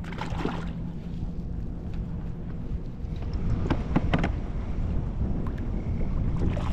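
Wind buffeting the microphone as a steady low rumble, with a few short clicks and knocks of handling fishing gear near the start and about four seconds in.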